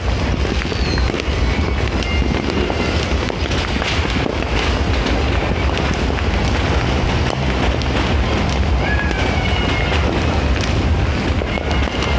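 Fireworks popping and crackling over a steady rumble of wind on a phone's microphone, with a few short high whistling tones.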